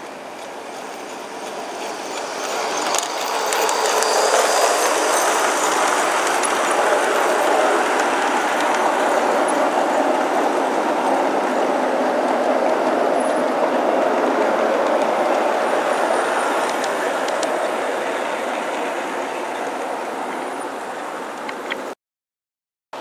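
G scale model freight train behind an Aristocraft 2-8-2 Mikado locomotive, its wheels and running gear rolling along the garden railway track with a steady rumble and clatter. It grows louder over the first few seconds as the train passes close, then fades as the train moves away.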